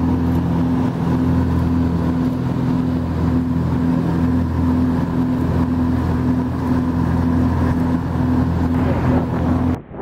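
Light propeller aircraft's engine running steadily, heard from inside the cabin as a low, even hum. It cuts off abruptly near the end.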